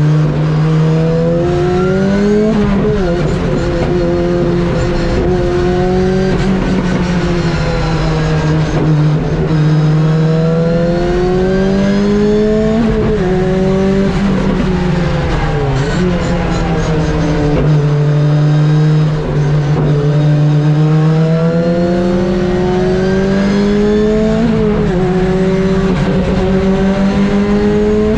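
Ford Escort RS Cosworth's turbocharged four-cylinder engine driven hard on track, revs climbing and dropping repeatedly through gear changes, with sharp drops in pitch about three seconds in, around halfway and near the end.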